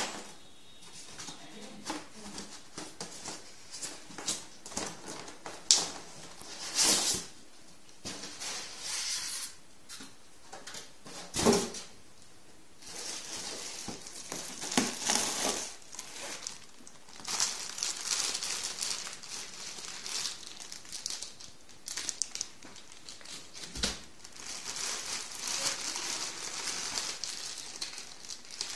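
Packaging being handled: plastic wrap and foam crinkling and rustling in irregular bursts, with an occasional soft knock.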